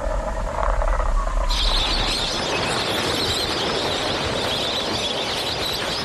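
Dense, steady chattering of a chorus of wild birds, starting suddenly about one and a half seconds in over a low hum.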